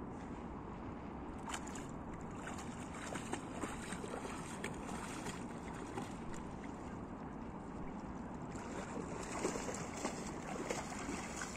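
Water splashing and lapping as a Newfoundland dog swims with a stick, with wind rumbling on the microphone. The splashing gets louder near the end as the dog wades through the shallows.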